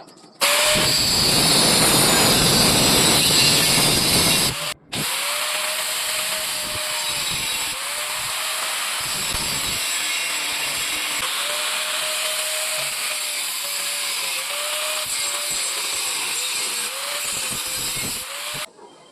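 Angle grinder working thin square steel tube. A loud first run stops briefly about five seconds in, then the grinder runs on more quietly for about fourteen seconds. Its motor pitch sags and recovers again and again as the disc bites into the metal.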